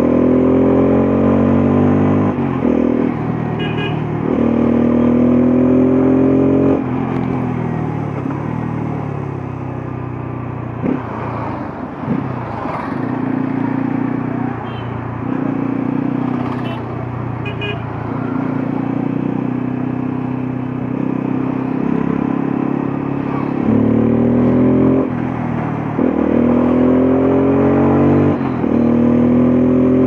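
Bajaj Pulsar F250's single-cylinder engine and exhaust under way, revving up hard again and again with a break at each upshift. There is a spell of easier, steadier running in the middle before it pulls hard through the gears again near the end.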